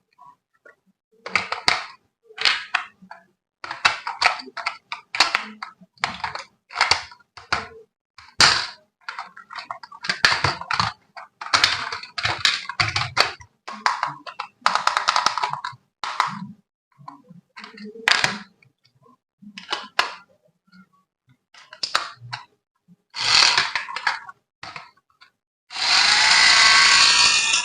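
Handling and unpacking of a toy remote-control jeep: a run of irregular plastic crackles, clicks and knocks, then a steady rasping noise for about two seconds near the end.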